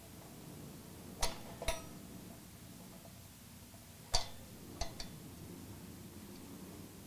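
Steel rocker arms and push rods clicking against each other and the rocker shaft as they are aligned and seated by hand on an AeroVee cylinder head. There are five light metallic clicks: two a little over a second in, and three between about four and five seconds.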